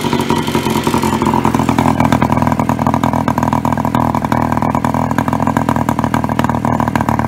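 Babetta 210 moped's small two-stroke single-cylinder engine running steadily through an Akrapovič silencer, with a quick, even exhaust beat. A hiss above it fades away about a second in.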